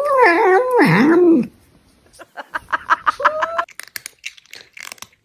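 A cat's long, wavering meow that drops low and rises again near its end, followed by a quick run of short pulsed sounds and a few clicks.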